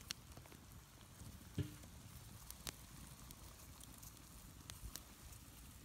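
A small wood campfire crackling faintly, with a handful of scattered sharp pops, under a steel pot of water at a steady boil.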